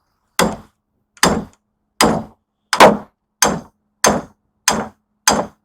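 A hammer striking a steel chisel eight times at a steady pace, each blow a sharp metallic whack with a brief ring, cutting the copper windings out of an electric motor.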